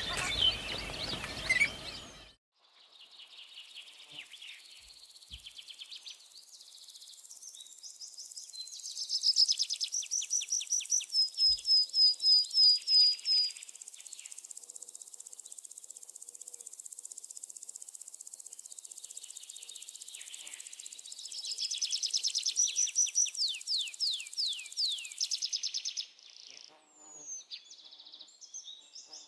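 Songbirds singing in the open: high chirps, with two long trilled phrases of rapid, falling notes, one about ten seconds in and one about twenty-two seconds in. A louder, different sound cuts off abruptly about two seconds in.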